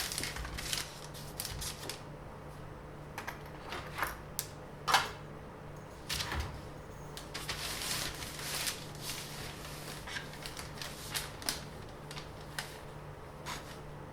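Irregular small clicks and rustles of handling, with the strongest knock about five seconds in, over a low steady hum.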